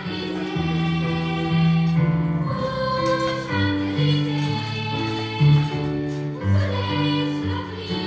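Children's choir singing together into microphones, with instrumental accompaniment carrying a lower line beneath the voices; the melody moves in long held notes.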